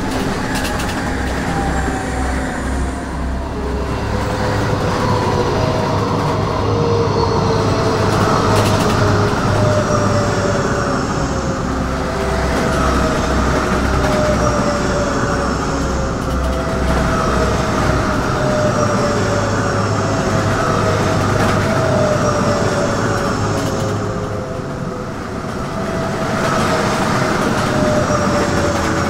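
High-speed trains rushing past one after another, each pass carrying a whine that falls slowly in pitch. A low, even pulsing runs underneath.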